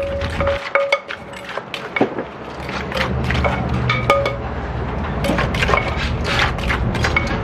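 Wooden pestle and metal spoon working papaya salad in a clay mortar: rapid irregular knocks and clinks, some of the spoon's clinks ringing briefly. A low steady hum joins about three seconds in.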